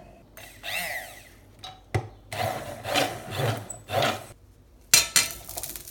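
Hand-held stick blender puréeing hot asparagus soup in a saucepan, running in several separate bursts, with a sharp knock about two seconds in.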